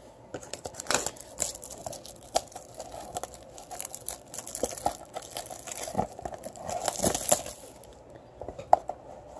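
Clear plastic shrink-wrap being torn off a trading-card box and crumpled in the hands: a run of irregular crinkles and crackles.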